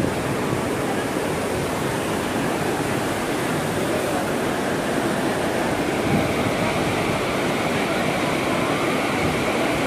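Zayanderud river water pouring over the stepped stone weir of the Khaju Bridge, a steady rushing spill.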